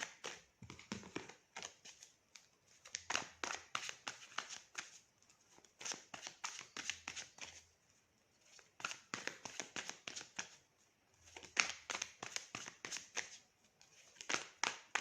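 A deck of tarot cards being shuffled by hand: runs of quick crisp card flicks lasting a second or two, with short pauses between.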